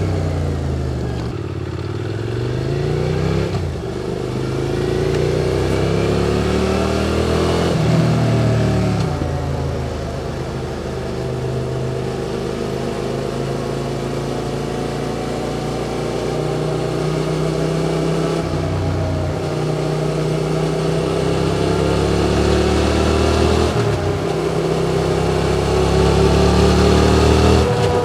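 QJ Motor SVT650X motorcycle engine through an Arrow Racetech slip-on exhaust, revving up and down while riding. The pitch climbs over the first few seconds with short drops at gear changes, falls away near ten seconds, holds fairly even, and climbs again toward the end.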